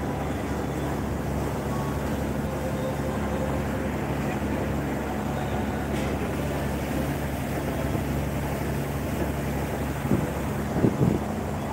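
Tour boat's engine running with a steady low hum, under the rush of water churning along the hull and wind on the microphone. There are two short louder sounds near the end.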